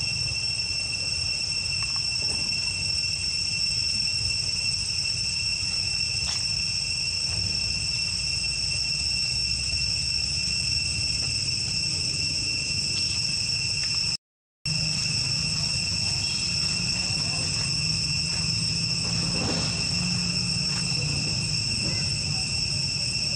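Steady high-pitched insect chorus, an unbroken drone at two or three even pitches, over a low rumble. It cuts out for a split second about halfway through.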